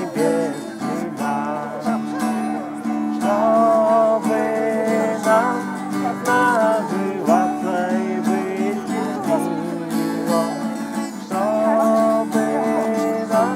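Music: an acoustic guitar strummed under a wavering melody line, over steady sustained low notes.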